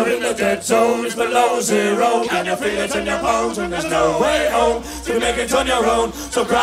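Several voices singing together in a live band performance, with little or no instrumental backing apart from a low steady bass underneath.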